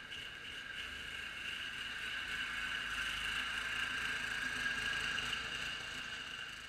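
Homemade Craftsman 6x4 garden tractor's engine running as it drives up pushing snow with its front blade, growing louder as the tractor approaches and easing slightly near the end.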